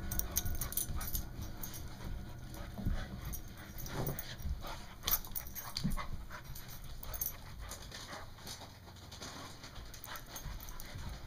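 Two dogs play-fighting: a five-month-old puppy makes short vocal noises at an older dog, amid many short clicks and scuffles.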